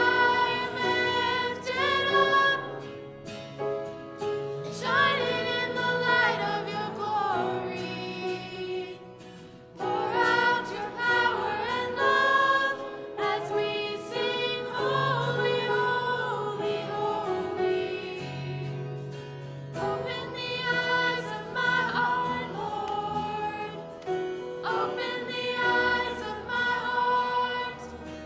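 Two young women singing a hymn together, with low sustained notes of instrumental accompaniment underneath.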